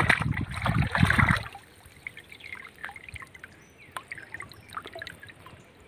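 Water sloshing and trickling as hands pull a small fish out of a wet nylon gill net in shallow pond water. A louder stretch of handling and sloshing comes in the first second and a half, then only faint drips and small trickles.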